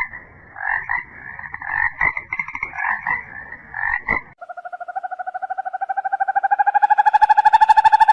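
Frogs calling: irregular repeated croaks, then a few seconds in a steady rapid pulsed trill takes over, rising slightly in pitch and growing louder.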